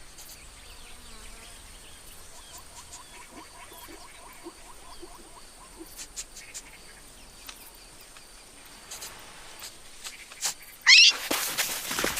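Quiet nature ambience with a run of rapid, evenly spaced animal chirps, like insects or frogs. A sudden loud rising sound comes in near the end.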